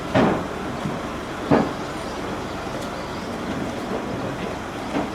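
A steady mechanical rumble with two heavy clunks, one at the start and one about a second and a half later.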